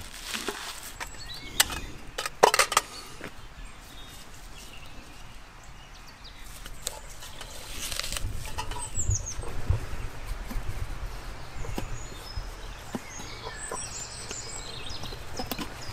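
A knife chopping through leaves onto a wooden board, with a few sharp knocks about two seconds in. Faint bird chirps come in later, over quiet handling.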